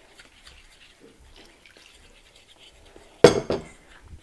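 Fork working flour and liquid in a stainless steel mixing bowl, quiet at first. About three seconds in comes a loud metallic clatter of the fork knocking against the bowl, several strikes within half a second.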